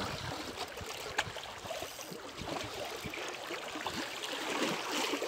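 Water splashing and sloshing in the shallows in short, irregular bursts, growing louder toward the end.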